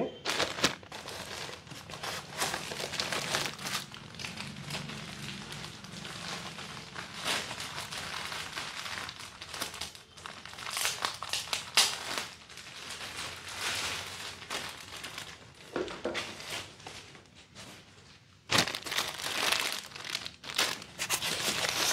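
Clear plastic packaging bags crinkling and rustling in irregular bursts as speaker parts are handled and unwrapped. The crackling dies down briefly about three-quarters of the way through, then picks up louder again.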